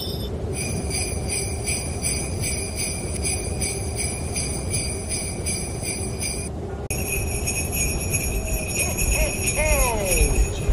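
Sleigh bells on a reindeer harness jingling in an even rhythm, about two shakes a second, over a steady low rushing noise. The jingling breaks off briefly about two-thirds of the way through, then resumes.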